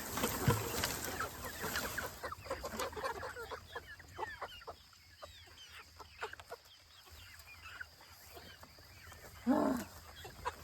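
A flock of young chickens clucking and chirping, with many short calls that thin out after the first few seconds. One louder, lower call comes about a second before the end.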